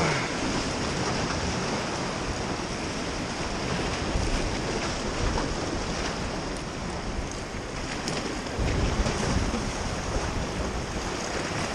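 Sea waves washing and splashing against the boulders of a rock jetty, with wind buffeting the microphone. A stronger gust comes through about nine seconds in.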